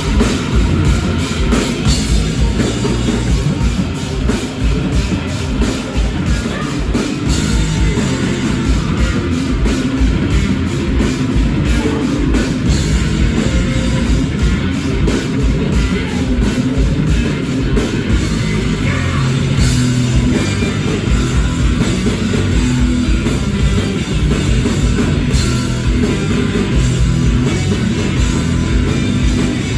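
A live rock band playing loud, heavy music with a pounding drum kit and guitars, continuous with no break.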